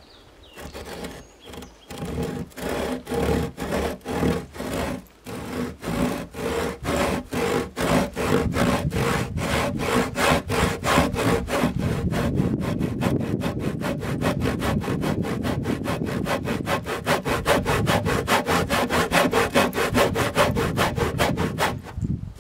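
Handsaw cutting a kerf about half an inch deep across a timber beam for a dovetail shoulder. Steady back-and-forth strokes start slowly and quicken to about three a second, then stop near the end.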